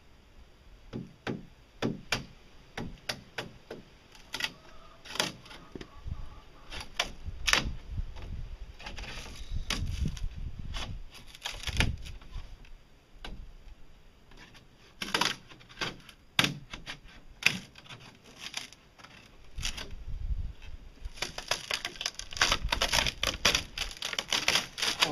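Cured fibreglass cracking and snapping as a screwdriver pries a laid-up half boat hull free of its form. The sharp clicks and cracks come in scattered runs, then thicken into dense crackling near the end.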